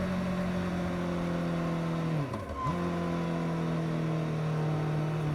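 Suzuki GSX-S750's inline-four engine on its stock exhaust running steadily at highway speed. A little over two seconds in the revs dip sharply and come straight back, like a quick gear change, and then hold at a slightly lower pitch.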